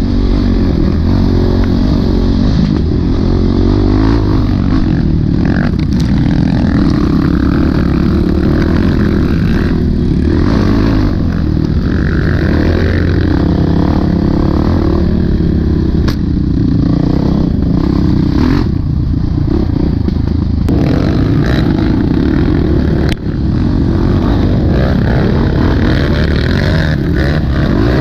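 Honda CRF450X dirt bike's single-cylinder four-stroke engine running continuously under load, with a few sharp knocks from the bike over the ground.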